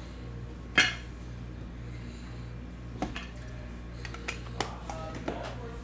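Clear plastic card holder being handled: one sharp plastic click about a second in, then a few lighter clicks and taps, over a low steady hum.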